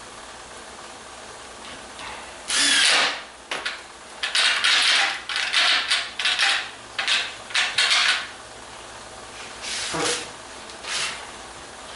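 Workshop handling noise in short, irregular bursts: a cordless driver being set down on a wooden 2x4 frame, scrapes and knocks against the wood, and a small plastic bag of hardware rustling near the end. No motor runs for any length.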